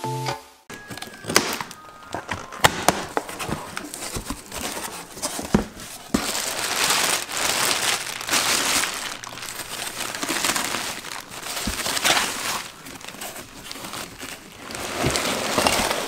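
Plastic bag crinkling and rustling inside a cardboard box as a piece of dry rock is unpacked. It is preceded by a few sharp clicks and knocks from handling the box in the first few seconds.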